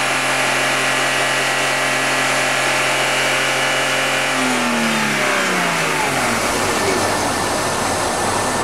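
BMW 528i straight-six engine running at steady, slightly raised revs, then the revs falling away smoothly from about four and a half seconds in, after which it runs on with a rougher, less even note.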